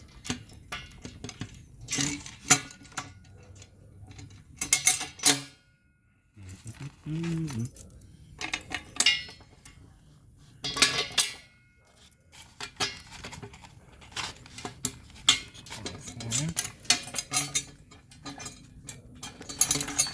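Steel tow bar parts and bolt hardware clinking and knocking irregularly as they are handled and lined up for fitting.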